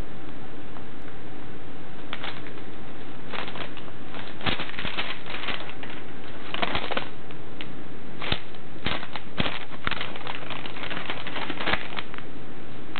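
A sheet of paper rustling and crinkling in irregular bursts as a cat bites and tugs at it, the crackles coming thicker from about a third of the way in.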